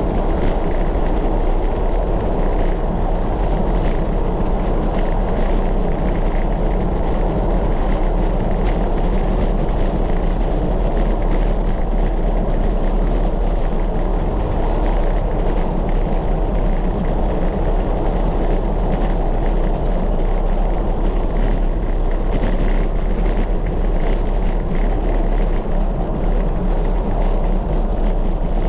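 Steady, loud wind noise buffeting the rider's camera microphone as the bicycle descends at speed, mostly deep rumble.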